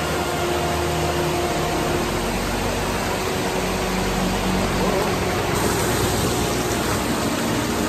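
Rainforest creek rushing over rocks in small cascades: a steady, even rush of water.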